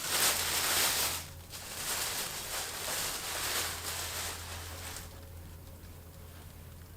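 Plastic bag rustling and crinkling as it is handled, in two spells over the first five seconds, dying down near the end.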